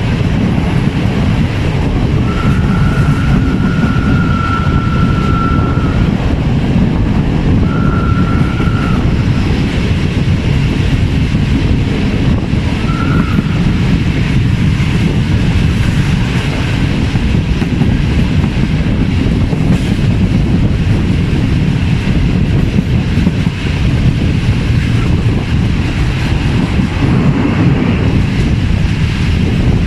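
Passenger train running, with a steady heavy rumble of wheels on the rails. The train's whistle sounds three times at one steady pitch: a long blast of three to four seconds, then a shorter one, then a brief toot.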